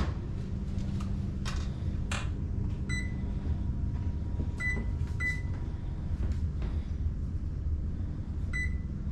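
Two knocks, then four short electronic beeps from a kitchen appliance's keypad as its controls are set, over a steady low hum.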